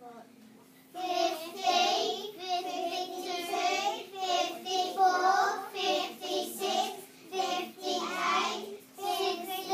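A class of young children counting aloud in unison, chanting numbers by twos in a sing-song rhythm of about two a second, starting about a second in.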